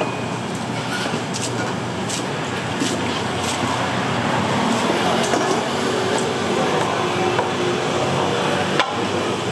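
Steady hiss of a busy street-food stall with faint voices and a few light knocks. Near the end comes one sharp knock as a cleaver comes down on the wooden chopping block.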